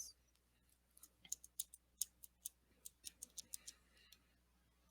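Near silence broken by a scattered run of faint light clicks and ticks, starting about a second in and lasting a couple of seconds.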